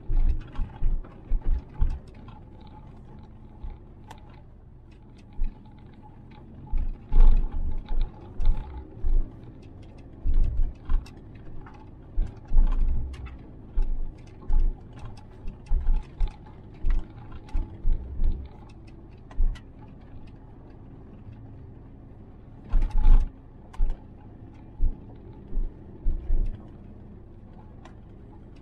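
Suzuki Jimny JB64 driving over a rough gravel forest road, heard from inside the cabin: a steady low drone from the engine and tyres under frequent irregular thumps and knocks as the body and suspension jolt over ruts and stones, with two heavier bangs, one about seven seconds in and one later on.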